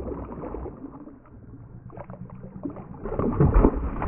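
A hooked fish thrashing and splashing at the water surface. The splashes are faint and scattered at first, then come loud and fast from about three seconds in as the fish leaps clear of the water.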